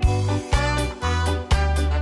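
Upbeat background music with a bass line and a steady beat, starting abruptly.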